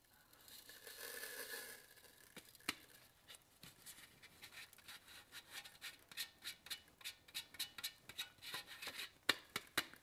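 Faint handling of stacked plastic gold-prospecting classifier screens over a glass dish: a soft rubbing scrape, then a run of quick small clicks and taps as the screen is worked, with two sharper knocks near the end.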